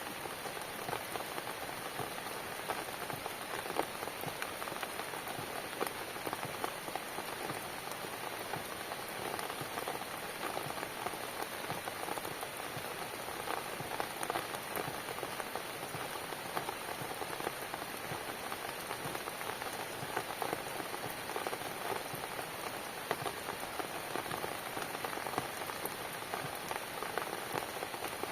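Steady rainfall, with a dense scatter of fine ticks from individual drops striking.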